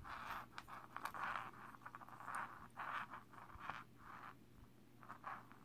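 Hands handling and turning over a small carbon-fibre quadcopter frame fitted with ESCs, motors and twisted wires: a faint, irregular run of light scrapes, rubs and clicks.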